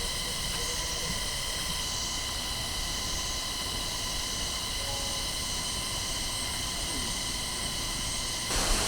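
Camera drone hovering: a steady propeller whine made of several held tones, over a faint rushing haze. About eight and a half seconds in it cuts to the louder rush of the waterfall.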